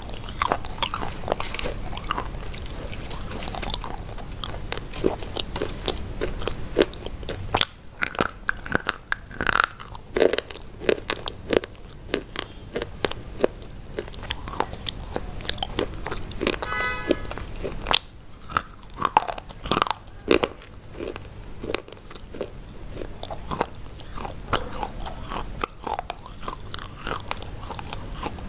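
Close-miked biting and chewing of hard white sticks: sharp, irregular crunches and snaps as pieces break off and are chewed.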